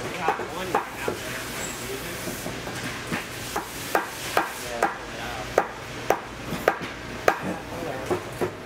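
Irregular sharp taps and knocks from bootmaking handwork, about one or two a second and louder in the second half, over a steady low machine hum.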